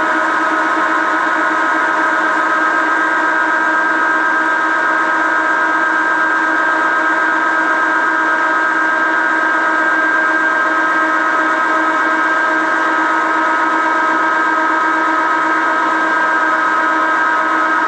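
1955 Meuser metal lathe running steadily while machining an aluminium workpiece, giving an even whine of several steady tones that does not change.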